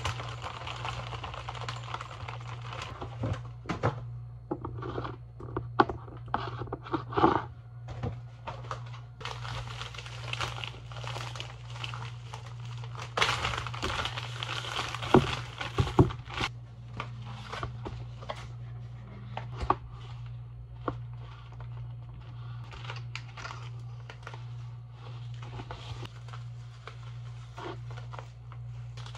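Plastic bags crinkling and rustling as dry granola is poured out of a glass bottle and bagels are bagged, with a few sharp knocks on the countertop. A steady low hum runs underneath.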